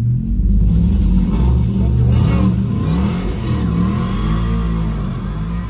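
2019 Dodge Charger's 3.6-litre Pentastar V6 heard from inside the cabin, its engine note rising and falling repeatedly, growing quieter toward the end.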